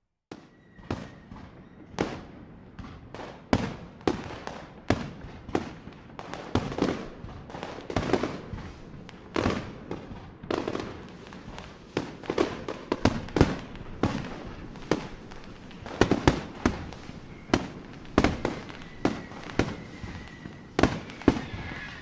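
Fireworks going off: a dense, irregular barrage of sharp bangs, several a second, beginning suddenly just after the start. A faint, steady high whistle sounds briefly near the start and again near the end.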